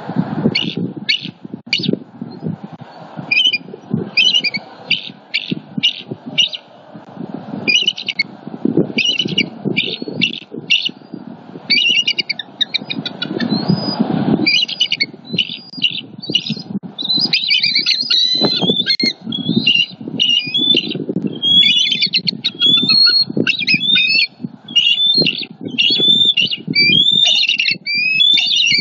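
Bald eagles calling in rapid series of short, high chattering notes: scattered at first, nearly continuous over the second half. These are alarm calls at an intruding eagle flying over the nest. Wind rumbles on the microphone underneath.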